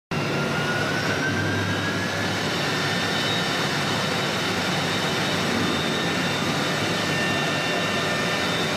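CNC router spindle running at speed while its bit routes a groove into a wooden door panel: a steady machine noise with a high whine, one tone rising slightly in the first two seconds.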